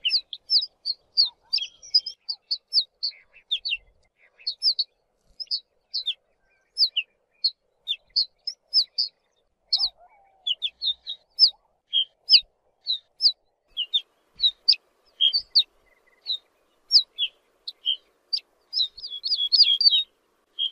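Ortolan bunting calling: short, high notes that slide sharply down, given singly or in pairs about two or three times a second, crowding together near the end.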